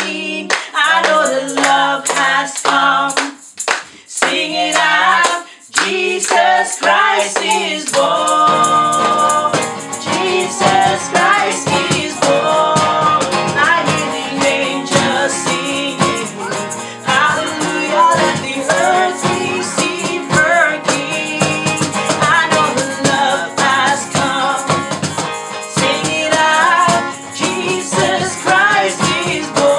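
A small group led by a woman's voice sings a Christmas worship song to steady hand clapping. Strummed acoustic guitar fills in the accompaniment from about eight seconds in.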